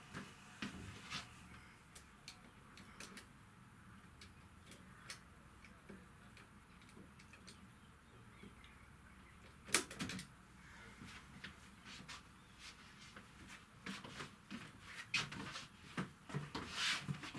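Faint scattered knocks and clicks of someone moving about a small boat cabin, with one sharper click about ten seconds in and a cluster of knocks near the end.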